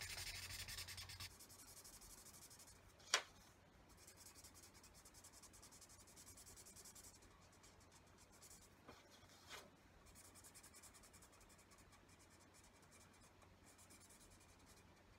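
Yellow felt-tip pen colouring in on paper: faint, steady scratchy back-and-forth strokes, louder for the first second or so. A single sharp click about three seconds in, and two small ticks near the middle.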